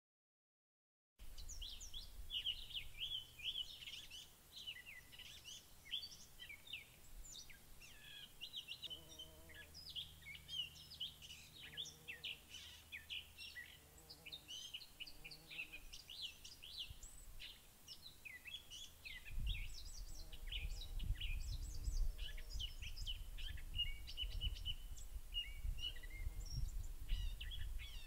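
A dense chorus of songbirds, many quick high chirps and trills overlapping, starting about a second in. A low rumble joins about two-thirds of the way through.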